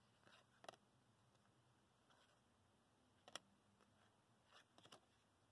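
Faint ticks and clicks of baseball trading cards being flipped through by hand, card edges snapping as each is moved off the stack: a couple under a second in, a sharper one a little past three seconds, and a small cluster near the end, with near silence between.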